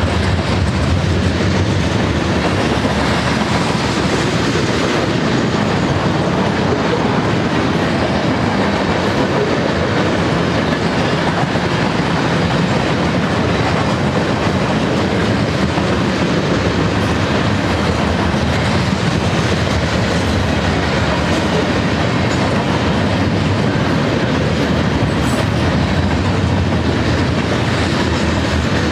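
Mixed freight cars of a long BNSF train rolling past close by: a steady, loud noise of steel wheels running on rail.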